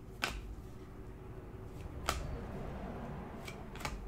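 Hockey trading cards being flipped through by hand: a few sharp snaps as single cards are slid off the stack, with a soft sliding rustle between the later snaps.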